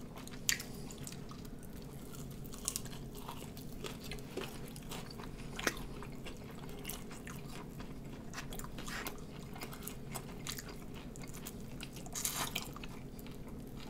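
Two people biting into and chewing sauced bone-in chicken wings, close-miked. Scattered mouth clicks and smacks, with a louder bite cluster near the end, over a faint steady hum.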